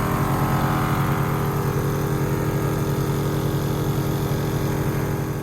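Portable air compressor running steadily with a fast pulsing hum, inflating a freshly plugged tire.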